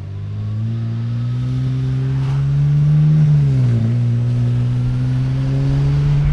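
BMW 335i's N54 twin-turbo inline-six heard from inside the cabin on a small test pull, revs rising. About three and a half seconds in the pitch drops sharply at an upshift, then climbs again in the next gear.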